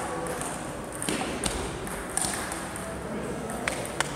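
Table tennis ball clicking off bats and table in a rally: about six sharp knocks, irregularly spaced from half a second to a second and a half apart.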